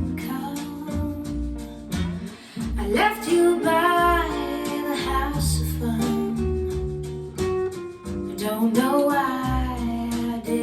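A song played back through Falcon Acoustics Q7 loudspeakers: acoustic guitar with held bass notes, and a singing voice gliding between notes at moments.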